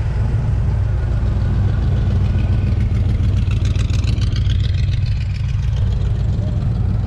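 Vehicle engine running close by with a deep, steady rumble. From about three seconds in, a faster, higher rattling sound rises over it and fades again over two or three seconds.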